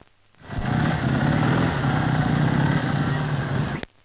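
Motor vehicle engines running, on old film sound, with strong low rumble; the sound starts about half a second in and cuts off abruptly with a click near the end.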